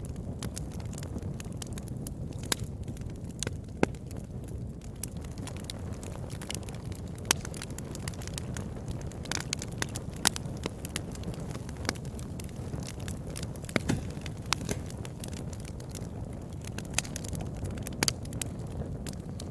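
Campfire burning with a steady low rumble and irregular sharp crackles and pops from the burning wood, a few louder snaps standing out.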